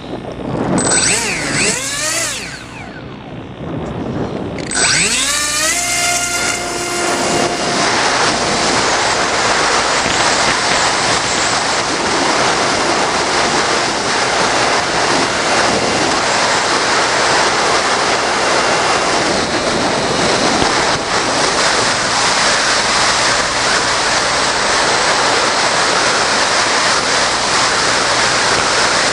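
Electric motor and propeller of a Bixler RC airplane throttling up twice near the start, each time a rising whine, then running steadily at speed under a dense rush of wind noise.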